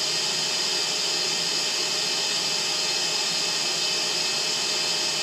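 A 100,000 RPM high-speed fan running steadily at its 20% speed setting with the plenum fitted: an even rushing of air with a steady high-pitched whine on top.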